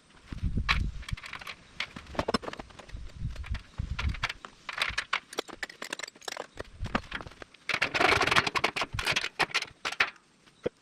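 Sharp metallic clicks and clatter from nuts, bolts and spring washers being handled and fitted to the joint of a PTO-driven concrete mixer's barrel, with a few dull knocks in the first half and a busy run of clicking near the end.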